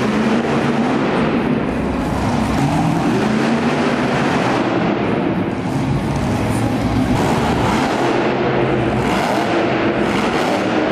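Monster truck engine revving hard, its pitch rising and falling again and again as the truck is driven through tricks.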